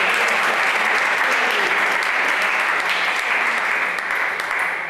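A small crowd of spectators applauding after a point in a table tennis match, steady and then fading out near the end.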